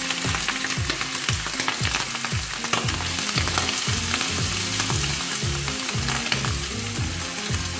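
Marinated mussel meat and slivered garlic sizzling in hot oil in a nonstick wok, with lots of small crackles and pops as it is stirred with a spatula. A low steady beat of background music runs underneath.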